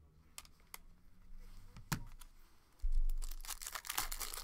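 A few sharp handling clicks, then a bump and a dense stretch of crinkling and tearing near the end as a plastic trading-card pack wrapper is torn open.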